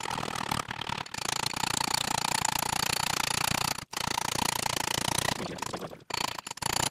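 Rapid hammer taps on a steel drift, driving a countershaft bearing outer race into a Volvo M410 gearbox case, with a steady metallic ringing under the blows. The tapping breaks off briefly about four seconds in and again near six seconds.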